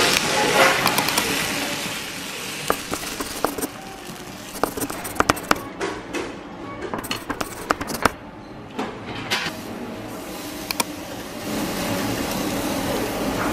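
Sizzling from a hot stone bowl as a metal spoon stirs it, then scattered clinks of utensils against dishes on a restaurant table. A steadier sizzle comes in near the end as slices of beef go onto a yakiniku charcoal grill.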